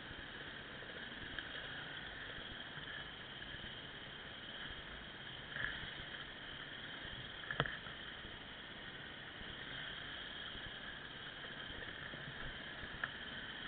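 Dirt bike engine running steadily at low revs on a slow trail climb, fairly quiet, with a soft thump and then a sharp knock near the middle.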